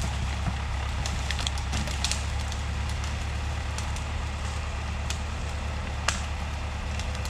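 Tractor engine running steadily under load as it skids a log through the woods, with scattered crackles and snaps of brush and wood.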